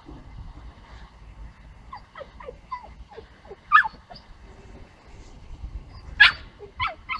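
Puppy yipping: a run of short, high, falling yelps, then a few sharper, louder yips around the middle and near the end.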